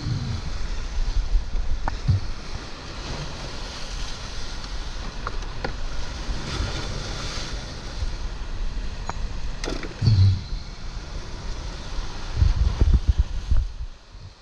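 Ocean waves surging and washing over a rocky shoreline, a steady rushing wash, with heavy low rumbling bumps on the microphone at the start, about ten seconds in, and again near the end, when the sound drops away.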